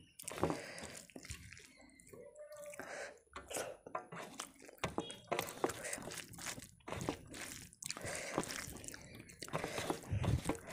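Fingers squeezing and mixing rice with dal on a metal plate: irregular wet squishing and small clicks and taps, close to the microphone.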